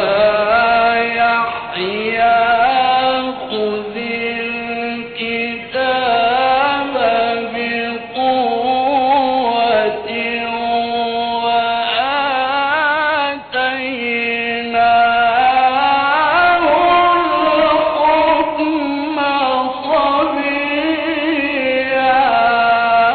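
A male Quran reciter chanting in the ornate, melodic mujawwad style without accompaniment. His single voice draws out one long phrase, winding up and down in pitch through held notes and ornaments, and pauses briefly about halfway through.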